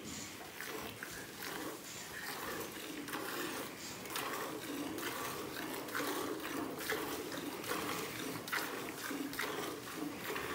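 Hand-milking a cow: jets of milk squirting into a part-filled steel pail in a quick, regular rhythm of spurts, one per squeeze of the teats.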